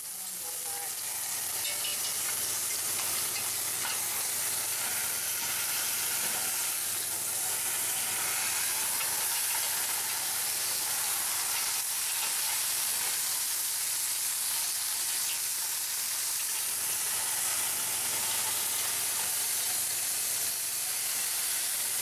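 Hot juices sizzling in a cast iron Dutch oven, a steady hiss, with faint scrapes and ticks of metal tongs and a spatula against the pot.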